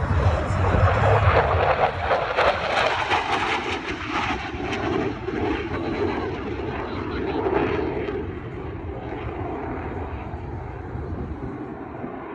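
Blue Angels F/A-18 Super Hornet jet engines roaring past in a low display pass. The sound is loudest in the first few seconds, then slowly fades as the jets pull away.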